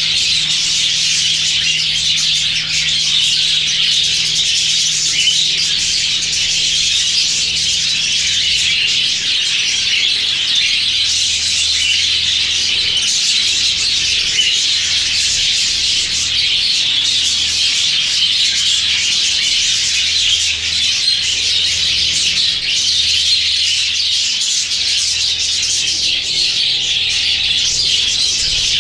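A flock of budgerigars chattering and chirping continuously, many birds calling at once, over a faint steady low hum.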